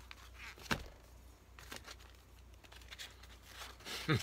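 Plastic wrapping on a takeaway food tray crinkling as it is handled and peeled open, with a sharp click just under a second in and louder rustling near the end.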